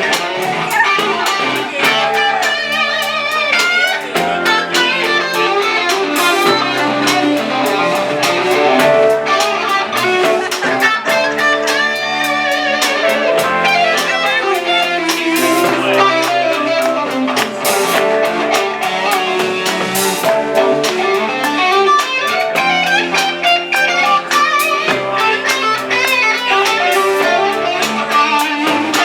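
Live rock band playing: electric guitar over bass and drums, with drum hits at a steady beat.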